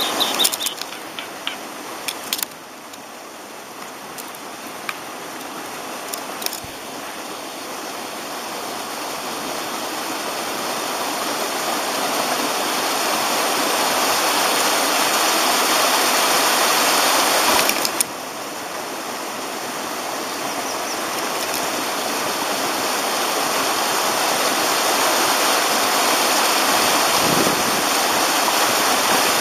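Steady rushing of a stream, an even wash of water noise that grows louder over the first dozen seconds, drops suddenly at about 18 seconds and builds again. A few sharp bird calls right at the start and a couple of brief clicks.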